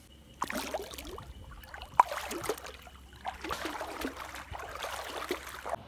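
Floodwater splashing and sloshing in irregular strokes. There is one sharp knock about two seconds in.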